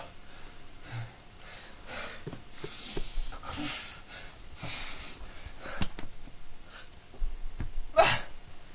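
A man's heavy, laboured breathing in repeated noisy gasps during a seizure, with a sharp, louder gasp near the end.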